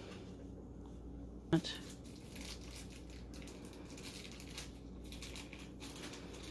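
Faint handling noise of a glued wooden dowel being pressed by thumb into a hole in the edge of a cabinet panel: scattered small rustles and clicks, with one short, sharp squeak falling in pitch about one and a half seconds in.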